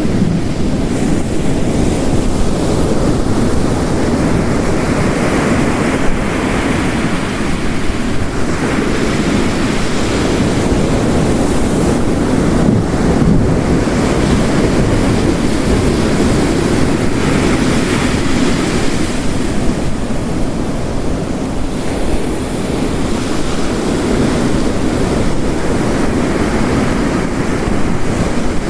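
Heavy, steady rain hiss layered with ocean waves crashing on a rocky coast, the surf swelling and receding every few seconds.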